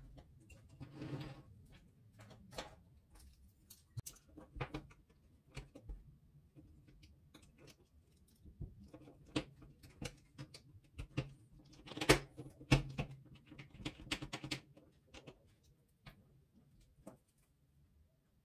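Scattered small clicks and knocks of plastic parts being handled and fitted back into a hot glue gun's housing: the trigger, the heating element and the housing halves. The clicks come thickest about twelve to fifteen seconds in.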